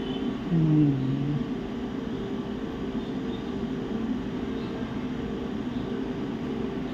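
Steady low machine hum. About half a second in there is a short falling vocal murmur.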